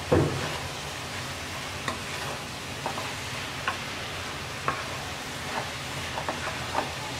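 Wooden spatula stirring stir-fried cabbage, potato and peas in a non-stick kadai: a steady sizzle with light knocks and scrapes of the spatula against the pan about once a second, the loudest right at the start.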